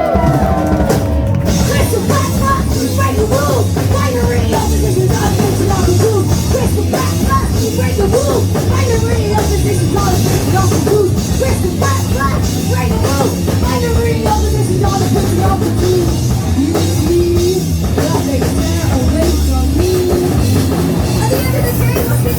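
Punk rock band playing live at full volume: a driving drum kit and bass under the band, with a voice singing over them.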